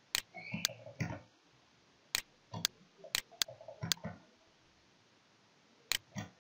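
Computer mouse clicking: sharp single clicks in small clusters as lines are placed on a chart, with a pause of over a second before a last click near the end.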